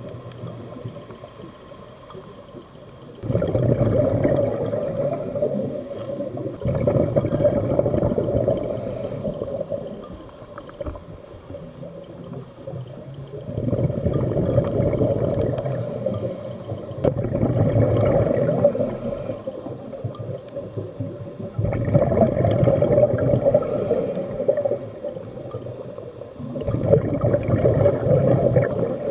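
Scuba diver's regulator breathing underwater: rushing bursts of exhaled bubbles that swell and fade every few seconds, with quieter stretches between breaths.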